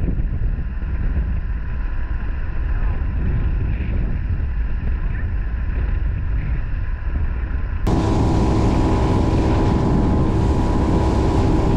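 Yamaha 40 hp outboard motor driving an inflatable boat along at speed, under heavy wind rumble on the microphone. About eight seconds in the sound jumps to a clearer, steady engine drone with several pitches.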